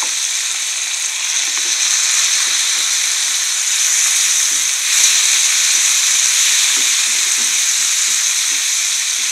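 Onions, cashews and peeled whole tomatoes sizzling steadily in hot oil in a nonstick frying pan. A wooden spatula stirs them now and then, its strokes faintly scraping the pan.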